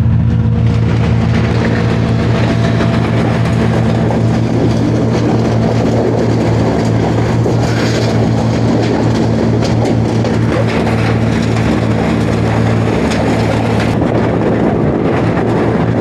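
Engine running steadily close by, a low even hum with no change in speed.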